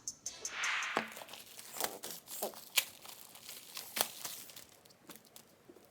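Packaging being torn and crumpled by hand during an unboxing: a short rustle, then scattered sharp clicks and crinkles that die down toward the end.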